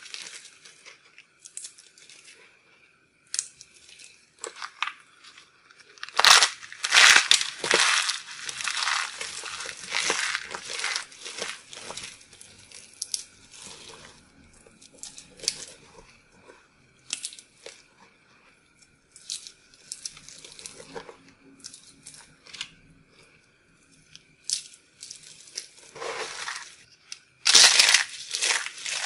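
Hands crushing and crumbling dried, starch-dusted soap pieces and shavings: dry crunching and crackling in irregular handfuls, loudest about six to eight seconds in and again near the end.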